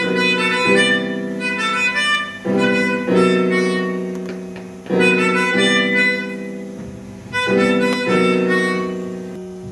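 Slow chords played on a keyboard instrument, struck in four pairs about two and a half seconds apart. Each chord rings and fades away. This is the return to the progression's opening two chords.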